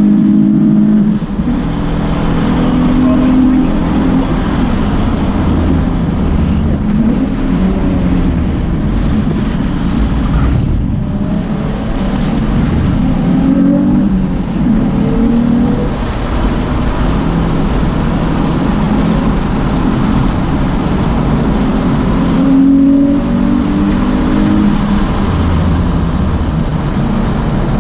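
Car engine heard from inside the cabin while driving hard on a race track, its note rising and stepping with throttle and gear changes, over steady road and wind noise. The note changes briefly about a second in, about eleven seconds in and about twenty-three seconds in.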